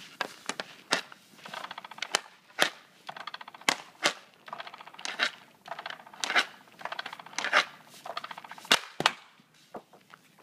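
Hockey stick and puck on ice: repeated sharp cracks, roughly one a second, as the puck is shot off the stick into a homemade bungee-cord pass-back and comes back, with rasping scrapes of puck and stick across the ice between the hits.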